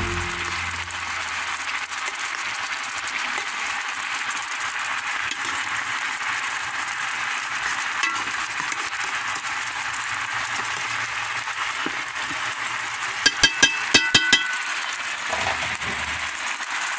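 Marinated chicken sizzling steadily in hot oil and sauce in a pot. A little past the middle comes a quick run of about six sharp metal clinks from a spoon against the pot.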